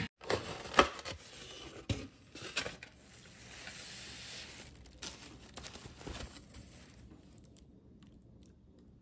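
Foam takeout clamshell being handled and opened, with a few sharp clicks and squeaks of the foam in the first three seconds, then quieter rustling of the container and foil wrapping.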